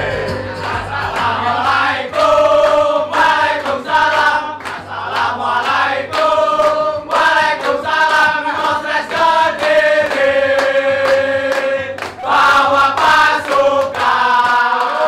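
An audience singing along together in unison, many voices carrying one melody, with a band's music underneath.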